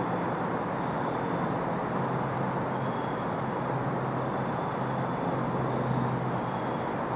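Steady outdoor background noise: an even rushing hiss with a low hum under it, and faint short high chirps now and then.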